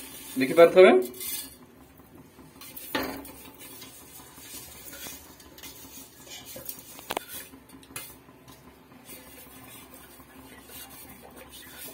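Steel bowl knocking and clinking against the rim of an aluminium cooking pot as ghee-fried basmati rice is tipped in. There is a louder knock about three seconds in and a sharp click about seven seconds in, among small scraping sounds.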